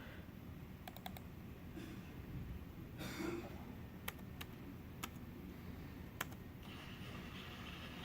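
A few scattered keyboard or mouse clicks, then, about two-thirds of the way in, the Roomba's wheel drive motors start running with a steady hum.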